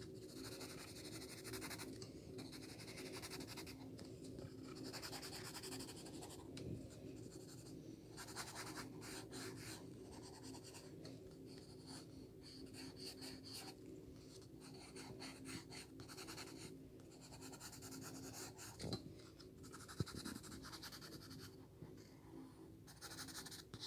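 Faint scratching of a graphite pencil on paper in quick sketching and shading strokes, coming in short runs with brief pauses between them.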